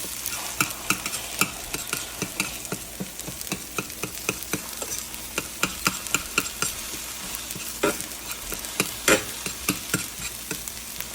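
Food sizzling in a frying pan while a utensil stirs it, clicking and scraping against the pan a few times a second, with one louder knock about nine seconds in.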